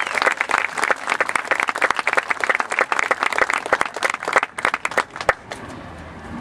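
Crowd applauding with dense clapping that thins out and dies away about five seconds in, leaving a few scattered claps.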